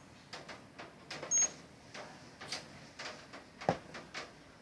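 A single short, high electronic beep from the Securico wireless alarm panel about one and a half seconds in, among scattered light clicks and taps, with a sharper knock a little before the end.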